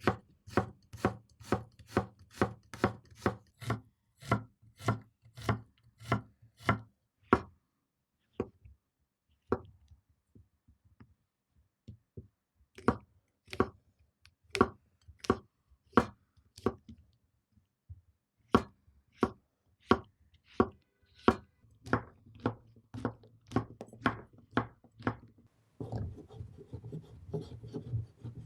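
Kitchen knife chopping on a cutting board, steady strokes about two to three a second in several runs with short pauses between them. Near the end a pan starts a steady sizzle.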